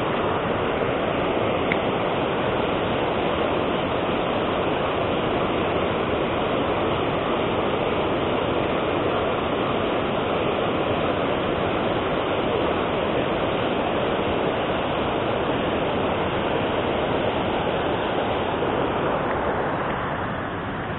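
Water rushing over a low river weir: a steady, even rushing noise that eases off slightly near the end.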